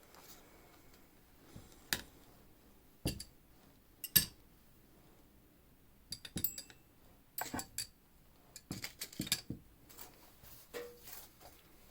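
Scattered light knocks and clinks of small hard objects being handled and set down, such as paint cups and supplies on a work table: a few single knocks, then quick runs of several clicks.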